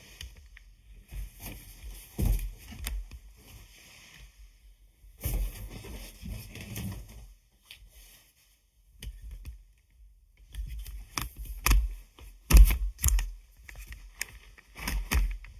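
Hands rubbing, squeezing and handling an air-filled sheet-latex balloon, giving irregular rubbery squeaks and rustling. Sharper clicks and knocks come in the last few seconds.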